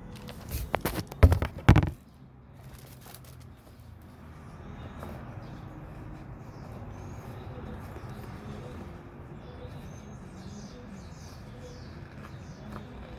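Handling noise: a quick cluster of loud knocks and rustles in the first two seconds, then a steady low background hum.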